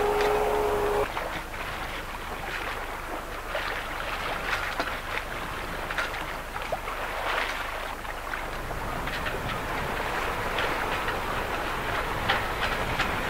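Speedboat outboard motor whining at a steady high pitch, cut off abruptly about a second in. Then water splashing and lapping, with many short slaps over a steady rush.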